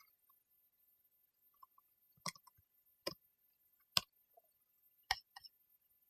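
Four sharp clicks of a computer mouse, roughly a second apart, with a few fainter ticks between them.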